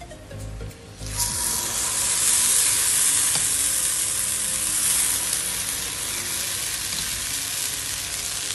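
Dosa batter hitting a hot, coconut-oiled cast-iron tava: a sudden loud sizzle starts about a second in, then goes on steadily and eases slightly as the batter is spread.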